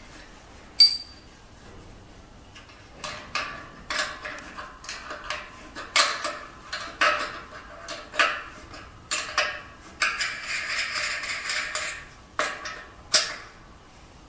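Metal clinks and scraping from a wrench turning the nut on a steel leveling foot's threaded rod, fitted beside a caster on a machine leg. A single sharp ringing ping about a second in, then irregular clicks and clinks, with a steadier rasp of metal on metal around two seconds before the end.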